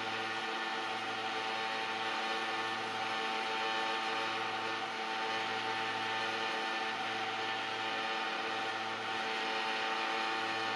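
Two Somfy motorised venetian blinds raising together: a steady electric motor hum and whine from the headrails, with a low hum that dips briefly about once a second. The right-hand blind is the noisy one, running at a level the owner finds unacceptable.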